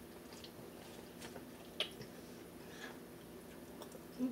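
Quiet eating sounds: faint chewing and mouth noises, with a few soft clicks, the clearest a little under two seconds in.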